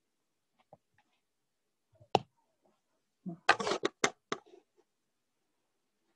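Handling noise close to the microphone: a sharp knock about two seconds in, then a quick cluster of knocks and clicks with a brief rustle about a second later.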